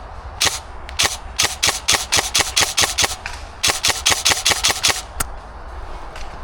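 Airsoft rifle firing two quick strings of shots, several a second, with single shots before and after.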